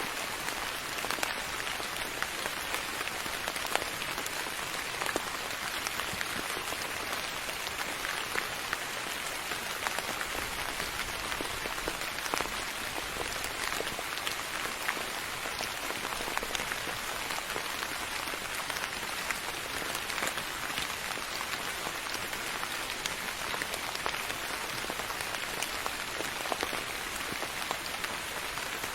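Steady rain falling, a continuous hiss scattered with many small drop ticks.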